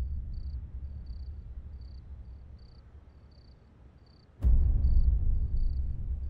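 Crickets chirping in a regular pulsing rhythm over a low bass rumble that fades almost away. About four seconds in, a sudden deep boom brings the low rumble back loud.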